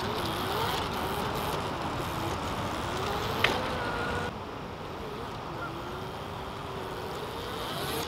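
Electric trials motorcycle's motor whining, its pitch slowly wandering up and down as the throttle is fed in small amounts, over a steady hiss of wind. A single sharp click sounds about three and a half seconds in.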